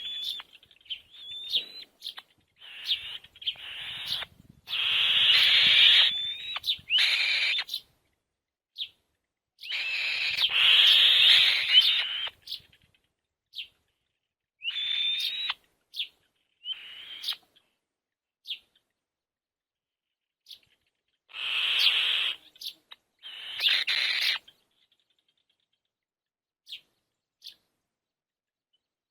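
Young birds in a nest calling: rough, raspy bursts of a second or two, repeated, with short high chirps in between. The calls die away in the last few seconds.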